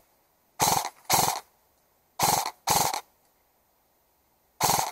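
Short bursts of airsoft gunfire, each about a quarter second long: two pairs of bursts, then a single one near the end, with silence between them.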